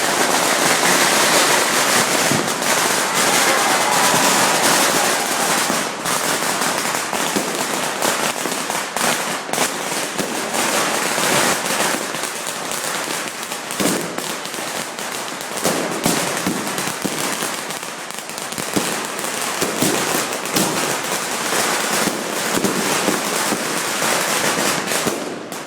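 Fireworks going off in a dense, continuous barrage of crackles and bangs.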